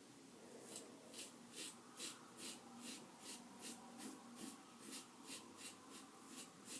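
Safety razor blade shaving through heavy stubble in quick, short strokes, a faint rhythmic scraping about two and a half times a second.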